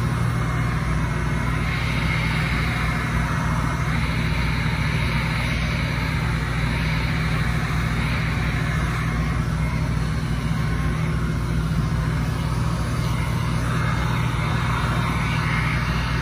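Handheld heat gun running steadily, its fan motor humming under a constant rush of hot air, as it heat-shrinks window tint film onto a car's rear glass.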